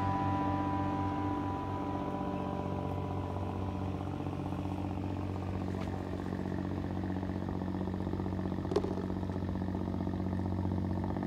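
Steady low engine hum, droning evenly, with a single short click near the end.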